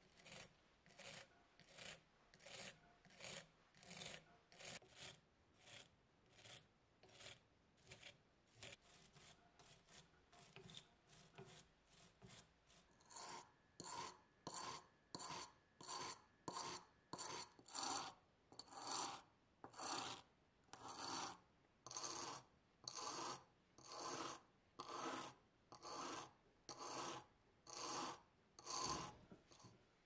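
Wire brush scrubbing rust off old metal lighter parts in even back-and-forth strokes, a dry rasping scratch, becoming louder and fuller about halfway through.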